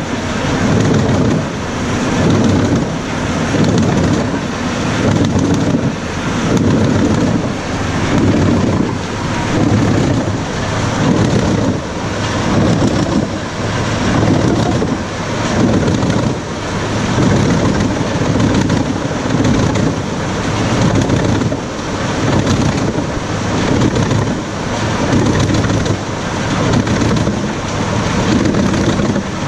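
Tractor-powered wood chipper chipping logs: a loud, continuous noise whose low end swells and eases about every second and a half.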